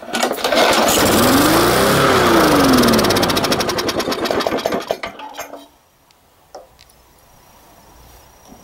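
Briggs & Stratton 3.75 lawn mower engine, fuelled on straight rubbing alcohol, pull-started: it fires at once and runs for about five seconds, its speed rising and then falling, then it stumbles and dies. A few small clicks follow near the end.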